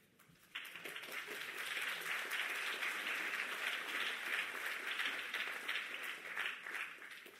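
Audience applauding: a dense patter of many hands clapping that starts suddenly about half a second in, holds steady, then thins slightly and stops abruptly.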